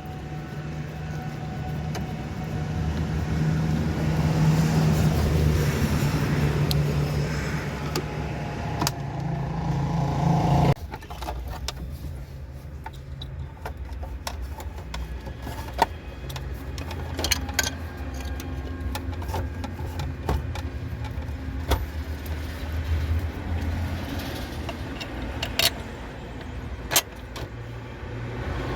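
A motor vehicle engine running with a steady low hum that grows louder, cutting off abruptly about ten seconds in. After that a fainter hum remains, with scattered sharp clicks and knocks.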